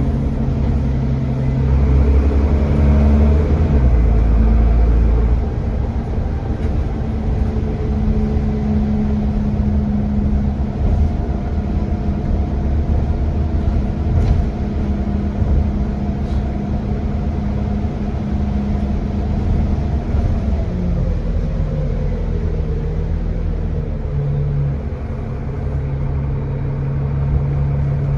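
A bus's diesel engine heard from on board, pulling under load with a steady note, then easing off about three-quarters of the way through and settling to a lower note near the end.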